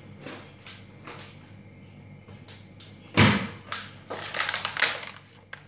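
A door shuts with a single loud thump about three seconds in, followed by the crinkling rustle of a plastic packet being handled.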